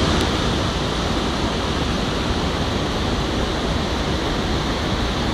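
Water rushing steadily through rapids, heard as an even, unbroken hiss.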